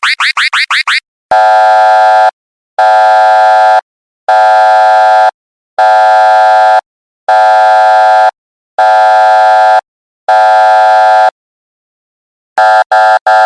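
Electronic alarm sound effects: a rapidly repeating rising chirp stops about a second in, then a buzzing alarm tone sounds six times, about a second on and half a second off. After a short pause, the same tone returns as quick short beeps, about five a second.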